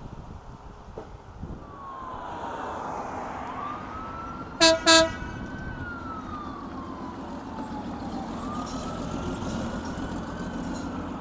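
Emergency vehicle siren wailing, falling and rising slowly in pitch twice. Just under halfway through, two short, loud horn blasts come in quick succession, over a low rumble of traffic.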